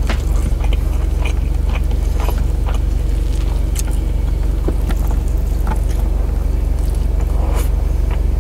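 Eating by hand at close range: rice and side dishes squished and picked from a metal tray and chewed, with small clicks and smacks. Under it, a steady low hum of a car idling, heard inside the cabin.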